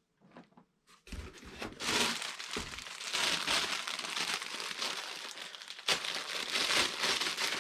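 Packaging being crinkled and handled as an item is unwrapped: a few soft rustles, then continuous crinkling from about a second in, with a sharper crackle near the end.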